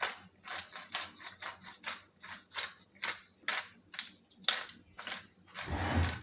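Hand pepper grinder being twisted, its mechanism clicking about three to four times a second as black pepper is ground. A louder thump near the end.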